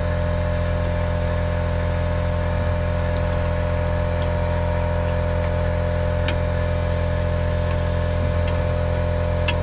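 Air compressor motor running steadily, its pitch steady after starting up just before, feeding an air-powered brake bleeder. A few light metallic clicks from a spanner working the brake caliper's bleed nipple.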